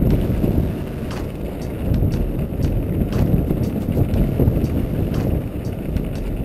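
Mongoose Black Diamond downhill mountain bike rolling over loose rocky gravel, heard from a handlebar-mounted camera: a steady low rumble of tyres and wind on the microphone, broken by scattered sharp clicks and rattles of stones and the bike.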